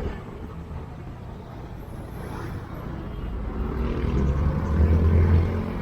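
Motor vehicle engine in street traffic: a low engine drone that grows louder from about four seconds in and eases slightly near the end.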